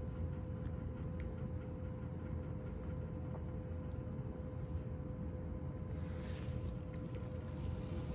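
A room appliance runs with a steady low hum and a constant thin whine. Over it come faint clicks of a cat licking and chewing small dried-sardine heads off a rug. About six seconds in, a soft hiss of rustling rises.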